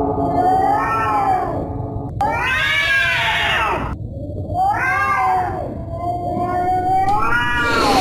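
Angry cat yowling: about four drawn-out, wavering calls that rise and fall in pitch, some broken off abruptly, the last held on one note before rising near the end.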